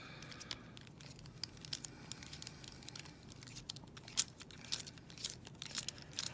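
Light, scattered clicks and scrapes of small metal tools working inside a partly disassembled ASSA Ruko2 padlock, with one sharper click about four seconds in.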